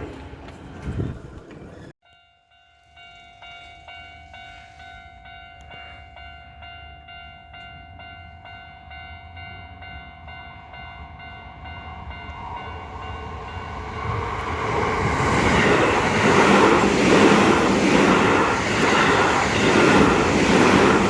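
Loud train noise cuts off about two seconds in. A Japanese level-crossing warning bell then rings steadily, and from about twelve seconds a Keio Line train approaches and passes loudly, its wheels clattering rhythmically over the rail joints.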